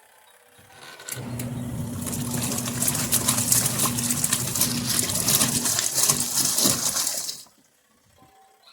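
Portable twin-tub washing machine running: a steady motor hum under loud water splashing and rattling. It starts about a second in and cuts off abruptly near the end.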